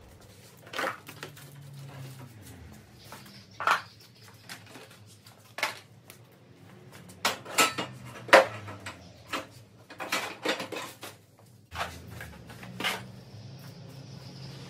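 Irregular metallic clinks and knocks of metal parts and tools being handled, the loudest about eight seconds in.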